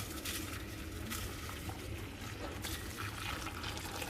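Water bubbling at a boil in a pot, a steady crackly bubbling that starts suddenly.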